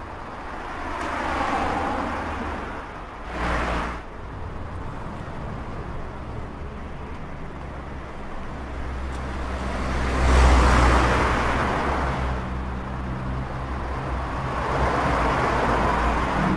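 City street traffic: several cars passing one after another over a steady low rumble, each swelling and fading, with a short sharp pass at about three and a half seconds and the loudest pass about ten seconds in.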